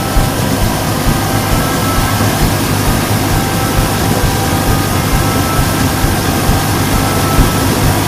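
Combine harvester's engine and unloading auger running steadily while wheat pours from the auger spout into a trailer.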